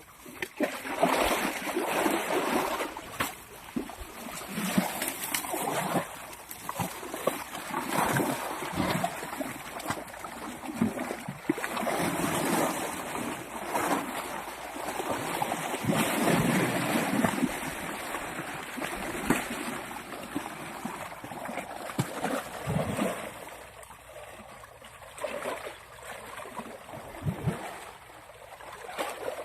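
Water splashing and sloshing in irregular bursts as two elephants play in water, busier at first and thinning out over the last several seconds.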